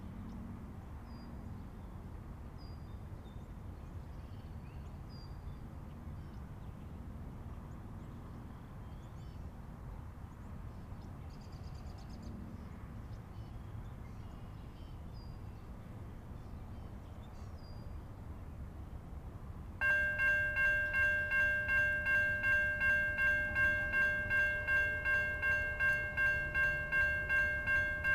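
Low steady rumble with a few faint chirps. About twenty seconds in, a railroad grade-crossing bell starts ringing sharply at about two to three strikes a second and becomes the loudest sound, signalling the crossing's warning as the train approaches.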